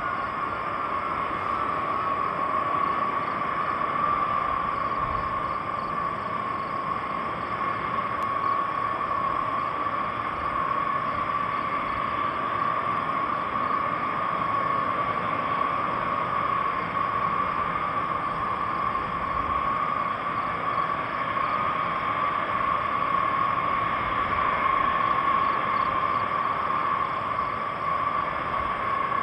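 B-52H bombers' TF33 turbofan jet engines running as the aircraft taxi: a steady high whine over a broad rushing noise. The whine slides slightly down in pitch at the start, then holds.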